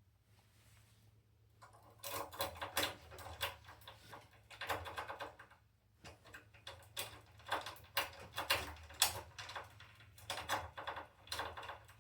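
A lock pick raked rapidly in and out of a filing cabinet lock's keyway under tension, the pins giving fast metallic clicking and scraping. It starts a couple of seconds in, stops briefly about halfway, then goes on again.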